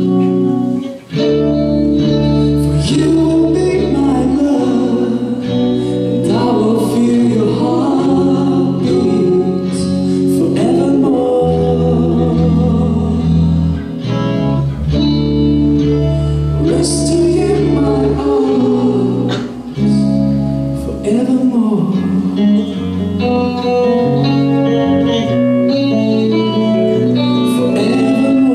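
Live rock band playing: electric guitar, bass and drums, with singing over them. The music drops out for a moment about a second in, then continues.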